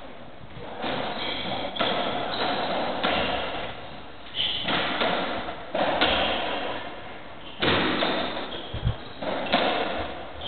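A string of hollow ball thuds, about one every second or so, each ringing on briefly in the enclosed squash court.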